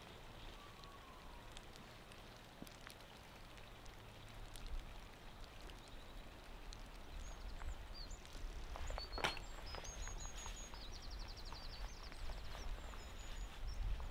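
Outdoor ambience: small birds chirping, with a quick trill in the second half, over a low rumble that grows louder partway through, and one sharp knock about nine seconds in.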